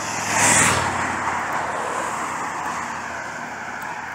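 A car passing close by on the road, loudest about half a second in, its noise then fading slowly as it moves away.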